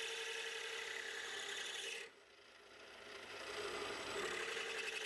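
Metal lathe cutting a groove into a spinning Damascus steel ring blank, a steady scraping rasp. The noise cuts out abruptly about two seconds in, then builds back up over the next couple of seconds.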